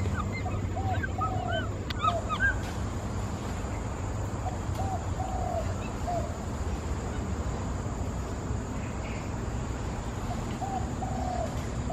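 Short arched chirping calls, several clusters of two or three notes, over a steady low background hum.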